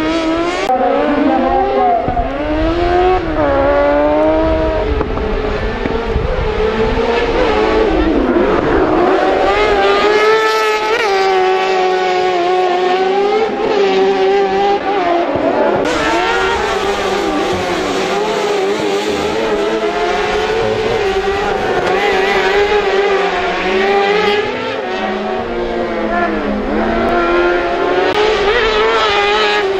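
Crosscar racing buggies at full race pace, their engines revving up and dropping back over and over as they shift gears and brake for corners.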